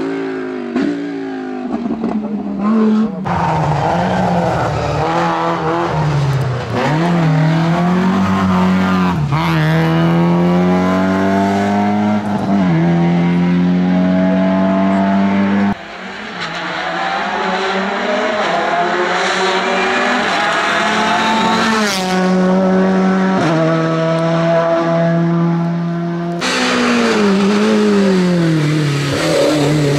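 Race car engines at full throttle in several separate passes, each rising in pitch through the gears and dropping at every shift. First comes an Alfa Romeo Alfetta GTV; near the end a BMW M3 E30 comes in.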